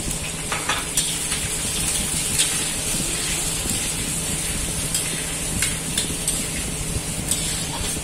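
Sliced onions sizzling in hot oil in a hammered metal kadhai, being lightly fried, while a spatula stirs them and scrapes and taps against the pan now and then.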